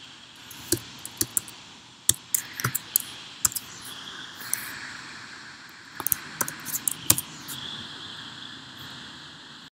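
Typing on a computer keyboard in short, irregular bursts of sharp key clicks, in three clusters about a second in, two to three and a half seconds in, and six to seven seconds in, over a faint steady hiss.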